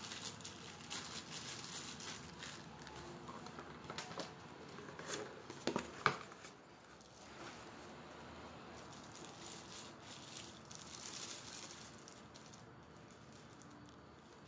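Plastic bags and cardboard packaging rustling and crinkling as blender parts are lifted out of their box by hand, with a few sharper clicks and knocks about four to six seconds in, the loudest about six seconds in.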